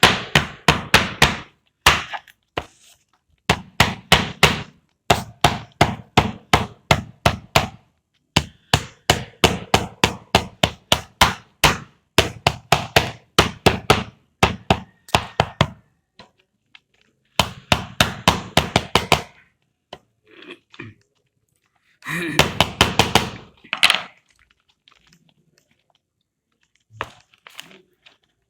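Rapid runs of sharp knocks, about five a second, each run lasting one to three seconds with short pauses between, thinning out to a few scattered knocks near the end.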